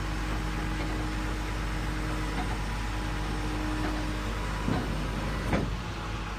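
Flatbed tow truck's engine idling, a steady low hum under an even hiss, with a couple of knocks near the end.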